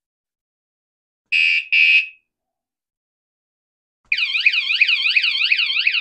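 KCMYTONER vibration-sensing bike alarm: two short high beeps, then about four seconds in its loud siren goes off, a rapid warble sweeping up and down about three times a second.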